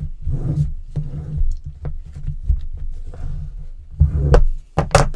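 Hands pressing and rubbing a paper strip down onto a panel on a tabletop: handling rumbles and bumps against the table, with light scraping and clicks. A few louder knocks and a sharp click come about four seconds in.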